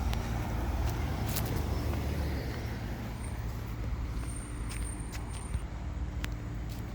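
Fire engine idling with a steady low rumble, with a few light clicks over it.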